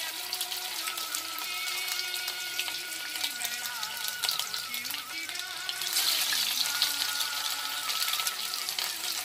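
Stuffed bitter gourds (karela) shallow-frying in hot mustard oil: a steady, crackling sizzle.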